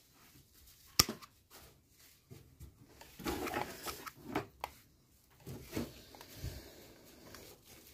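Pruning shears snip through a woody panicle hydrangea stem with one sharp click about a second in. Soft rustling of dry twigs and stems follows as the seedling is handled.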